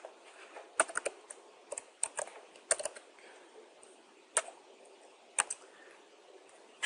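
Computer keyboard keys pressed one at a time, in short irregular runs of two or three strokes with pauses between.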